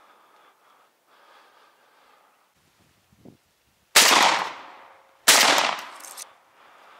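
Two shotgun shots just over a second apart, each echoing as it fades.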